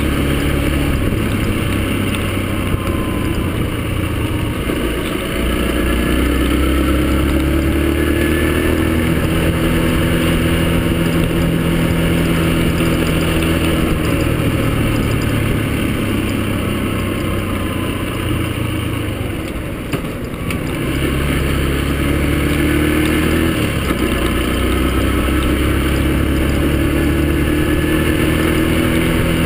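Yamaha XTZ125 motorcycle's single-cylinder four-stroke engine running under way, its pitch rising and falling with the throttle. It drops off briefly about twenty seconds in, then picks up again.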